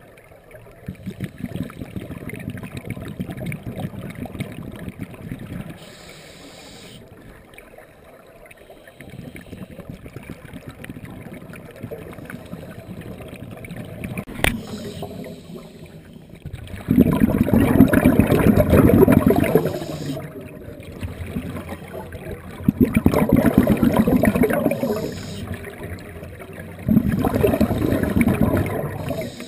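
Underwater sound inside a GoPro camera housing: a low, crackling water noise. Past the middle come three loud rushing bursts a few seconds apart, the exhaust bubbles of a scuba diver breathing out through the regulator.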